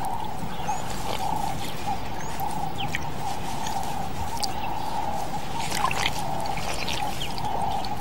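African buffalo wallowing in mud: soft wet squelches and drips of mud, over a steady background hum.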